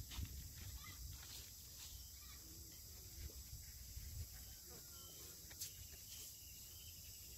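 Quiet outdoor background with faint chirping and a few soft clicks.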